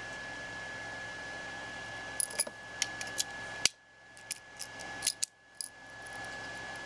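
Short, sharp metal-on-metal clicks and taps, about ten scattered between about two and six seconds in, as a small metal tool pushes the hammer pin out of the side of a WE G39 gas blowback rifle's trigger assembly.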